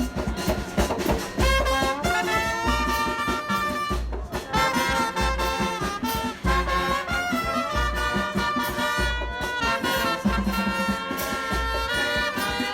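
Background music: an upbeat brass-led tune with horn lines over a steady bass beat.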